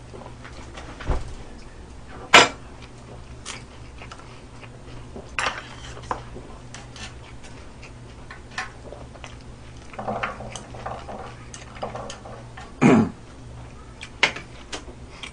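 Wooden chopsticks and a small glass bowl clinking and tapping against a tabletop grill plate and dishes while garlic slices are tipped onto the grill. Scattered single knocks, with a sharp one about two seconds in, a quick run of taps about ten seconds in and another knock near the end.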